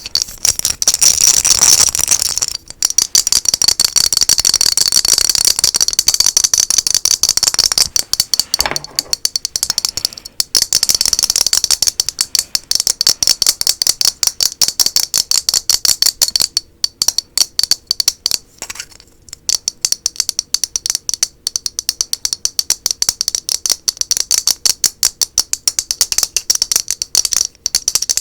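Very fast, aggressive tapping on an object, a dense rattling run of clicks broken by a few brief pauses.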